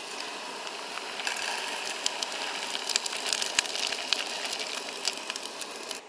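Dry lentils poured from a plastic bag into a pan of onions frying in olive oil: a dense rattle of small clicks as they land, over a steady sizzle. It cuts off suddenly near the end.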